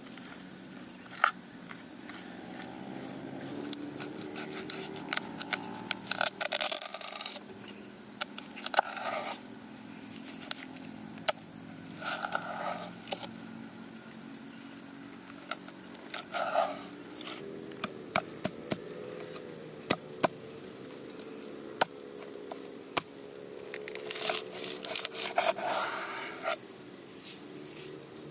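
A metal utensil scraping raw chitala fish flesh off the skin on a wooden cutting board: short scraping strokes in separate bursts, with sharp clicks of metal striking the board.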